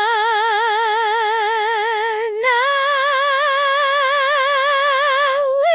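Synthetic singing voice from the Omnivocal AI vocal plugin, holding the word "shine" on long notes with an even vibrato. The note steps up about two and a half seconds in and steps up again at the end.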